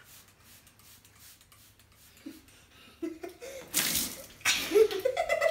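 A few faint spritzes from a trigger spray bottle, then a cup of water poured over a boy's head splashes loudly about two-thirds of the way in, with children laughing.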